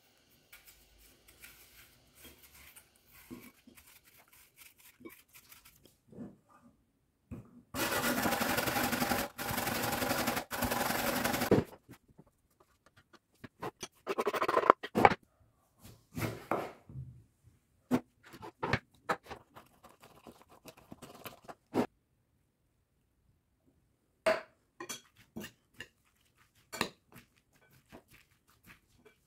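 Kitchen food-prep sounds: a knife faintly scraping as an apple is peeled. Then a loud, steady rasping for about four seconds, most likely the apple being grated. Near the middle comes a burst of scraping as grated apple is pushed off a wooden board with a spoon, and near the end short clicks and scrapes of spoon and fork tossing shredded red cabbage salad in a ceramic bowl.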